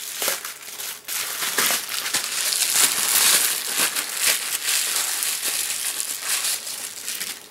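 Plastic bubble-wrap bag crinkling and crackling as it is handled and crumpled to get a circuit board out of it, with many small crackles.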